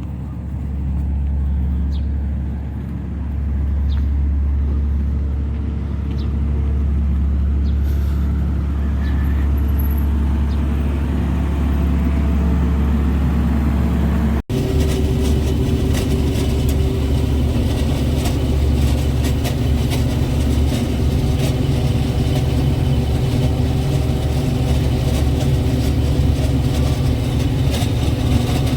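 CLAAS Dominator combine harvester running with a steady low engine drone. After a cut about halfway, the drone comes with a dense, busy rattle of machinery at work.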